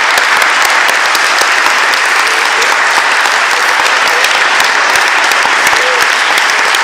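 Audience clapping, a dense, steady applause with a voice or two faintly heard in it.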